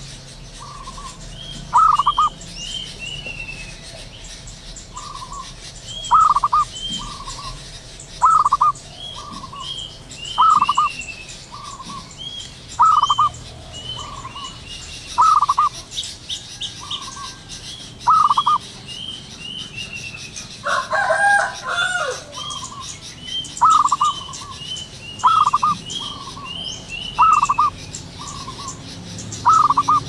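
Zebra dove cooing: short, quick trilling phrases repeated about every two seconds, with fainter high chirps between them and one louder, rougher call about two-thirds of the way through.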